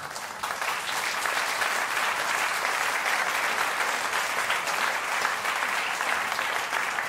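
Live theatre audience applauding, a dense even clapping that swells in the first second and then holds steady.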